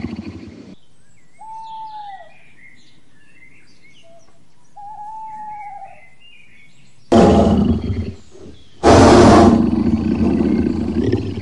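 Birds chirping quietly, with two short arching whistled calls. In the second half a big cat roars loudly twice, each roar lasting one to two seconds.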